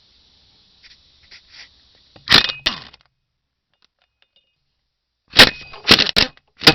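Sharp metallic bangs and clanks from tools on the front driveshaft yoke and axle flange as the driveshaft is worked loose: a short cluster about two seconds in, then four or five quick strikes near the end.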